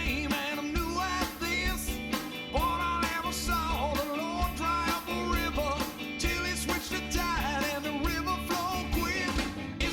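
Rock song with a singing voice over guitar, bass and drums with a steady beat.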